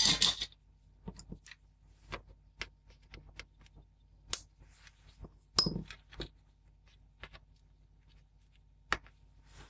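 Flush side cutters clicking and snipping a capacitor's wire leads on a circuit board, with scattered small taps of handling. The loudest clicks come at the start, about halfway through and near the end.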